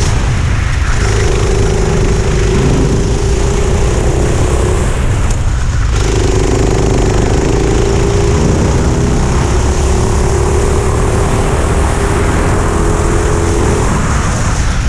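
Four-stroke kart engine heard onboard at speed. Its note cuts out briefly near the start and again about five seconds in as the throttle is lifted for corners, then climbs slowly under acceleration. A steady low rumble of wind and track noise runs under it.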